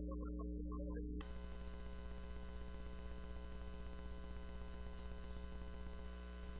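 Steady electrical mains hum in the recording's audio track, with faint music over it for about the first second. After that the hum runs on under a hiss of static until it cuts off suddenly at the end.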